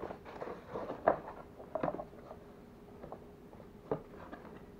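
Cardboard box being handled and its flaps pulled open: a handful of short cardboard scrapes and rustles, the sharpest near the end.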